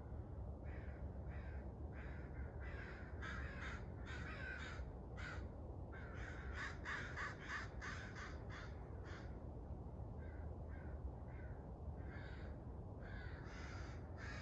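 A bird calling in quick runs of short, harsh repeated notes, four runs with brief pauses between them and the third run fainter, over a steady low rumble.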